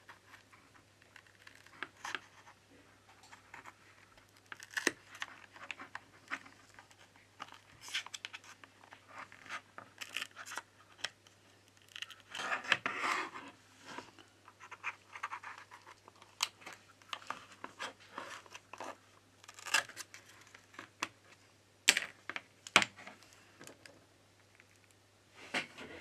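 Thin iSesamo metal prying tool scraping and clicking along the edge of an iPhone 11's cracked screen as it cuts through the heat-softened adhesive: scattered short scratches and sharp ticks, with a longer scrape about halfway through.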